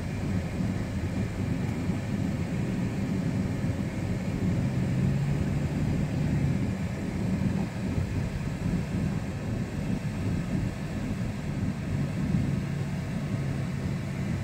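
2006 Dodge Ram pickup's V6 engine and road noise heard inside the cab while driving slowly: a steady low rumble with an engine hum that strengthens a few times.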